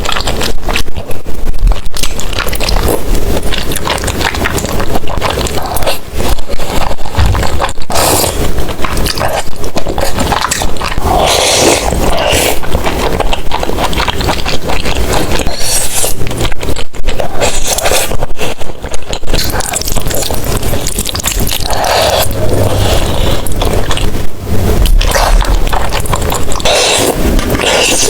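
Close-miked eating of cheesy tteokbokki: continuous wet chewing and biting of the rice cakes and cheese, with louder bursts every few seconds.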